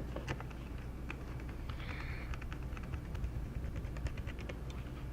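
Irregular small plastic clicks and taps from handling laptop internals during reassembly, with a short scraping rustle about two seconds in.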